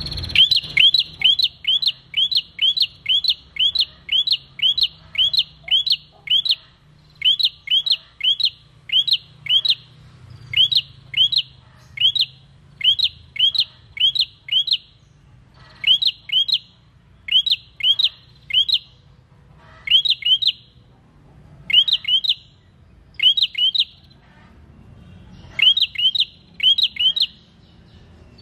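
A caged prenjak singing a fast string of sharp, repeated chirps, a little under three a second, in runs broken by short pauses.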